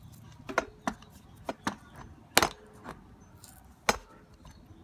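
Half a dozen sharp, irregular clicks and taps of small metal parts as the brushes and brush holder of a starter motor are fitted by hand, the loudest about halfway through.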